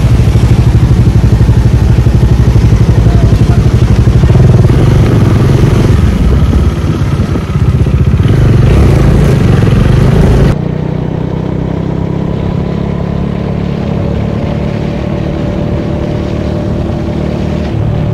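Motorcycle engine running under way, with heavy wind buffeting the microphone. About ten seconds in, the sound drops abruptly to a quieter, steadier engine hum.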